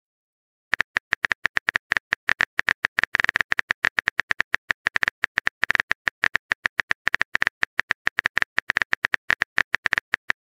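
Rapid keyboard tap clicks from a phone texting app as a message is typed. The short clicks come several to the second, starting just under a second in.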